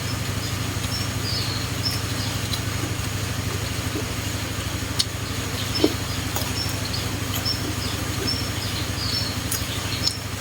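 Steady low drone of an idling engine, with short high chirps, likely from birds, repeating over it. A couple of sharp clicks come around the middle.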